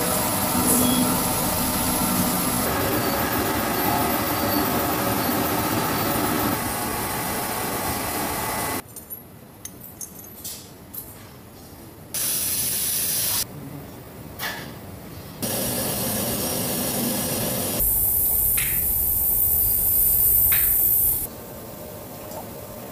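Lens polishing machine spinning with a steady grinding noise for the first several seconds. Then comes a run of short, changing machine sounds: quiet stretches with a few small clicks alternate with loud stretches of steady noise, one of them a bright hiss.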